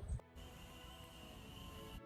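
Quiet background music of steady held tones, after a brief low rumble that cuts off sharply just after the start.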